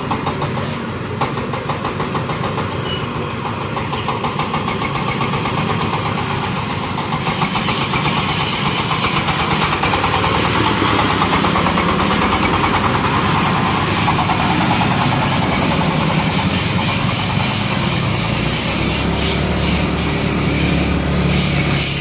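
Corn sheller machine running steadily on its engine. About seven seconds in, the sound grows louder and sharper and holds there.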